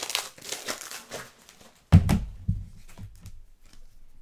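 Trading cards and their plastic wrappers rustling as they are handled. About two seconds in comes a sudden loud thump, like something set down hard on the table, followed by a few softer knocks.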